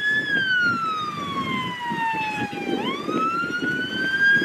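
Electronic siren of an approaching police vehicle on a slow wail: the pitch falls over about two and a half seconds, then sweeps back up and keeps climbing, over a steady low rumble.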